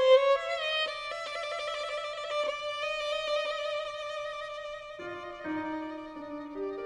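Violin music playing a slow melody: one long held note with vibrato, then a drop to lower notes about five seconds in.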